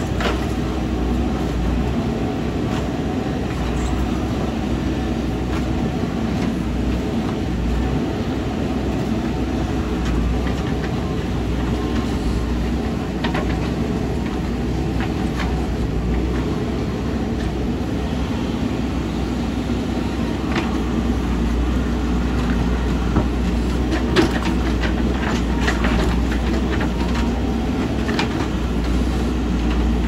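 Diesel engine of a heavy earthmoving machine running steadily under work, with scattered sharp metallic clanks and knocks, the loudest about two-thirds of the way through.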